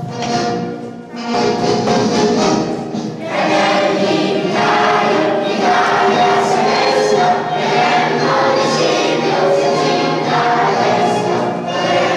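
Group of children's voices singing a song together over instrumental backing music, with a short break about a second in.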